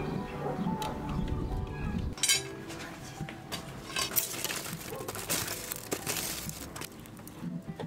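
A metal poker clinking and scraping in the firebox of a whitewashed masonry stove as glowing coals are stirred, with a sharp metallic clank about two seconds in and scattered clinks after it. A low rumble fills the first two seconds and cuts off abruptly.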